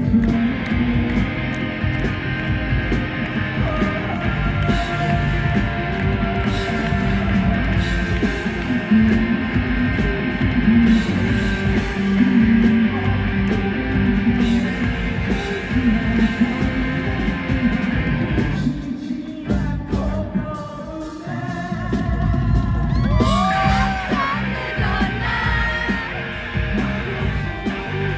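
Rock band playing live, with guitars, bass and drums under a male lead voice singing. About two-thirds of the way through, the low end drops away for a couple of seconds before the full band comes back in.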